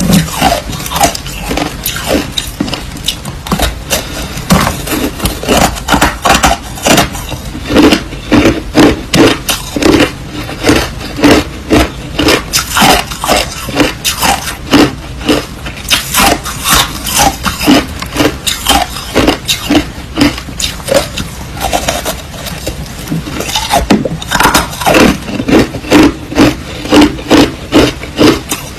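Crushed ice being bitten and chewed close to the microphone: a rapid run of loud, sharp crunches, several a second.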